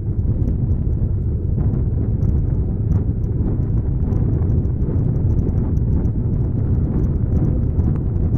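Sugeng Rahayu intercity bus's diesel engine running through its semi-'ngorok' (snoring) exhaust, a steady low rumble.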